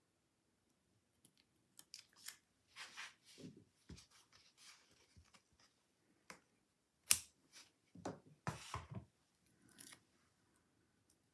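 Foam adhesive pop dots and paper being handled on a craft table: light rustling, peeling and scattered clicks, with one sharper click about seven seconds in.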